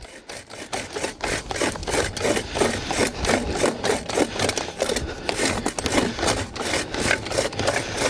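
Hand-turned 12-inch post hole reamer scraping through soil as it is twisted down the hole: a quick, steady run of rasping scrapes.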